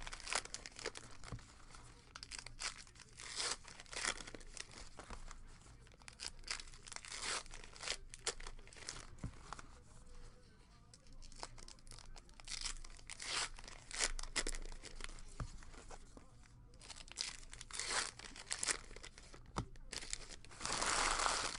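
Trading-card pack wrappers being torn open and crinkled, with cards handled and slid against each other: irregular crackles, rips and rustles.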